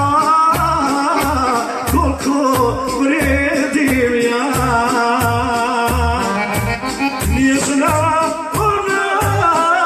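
Bosnian folk song played live: a singing voice over a band with a steady bass beat and light percussion.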